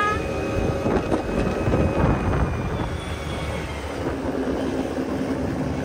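A motor scooter riding along a road, its small engine running under wind rushing over the microphone.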